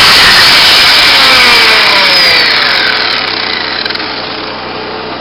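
Angle grinder running loud on steel, then its motor slowing with a falling whine over about four seconds and carrying on at a lower, steady level.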